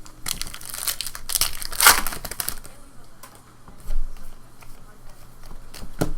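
Trading-card pack wrapper being torn open and crumpled: a burst of crinkling through the first couple of seconds, then quieter handling with a couple of light clicks.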